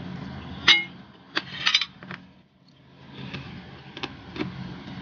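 Eating by hand from a plate: a ringing clink against the plate under a second in, then a scatter of short sharp clicks and mouth smacks, over a low steady hum.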